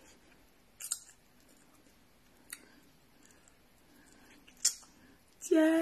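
Quiet room with a few short, faint clicks, then near the end a woman starts singing a long, steady held note.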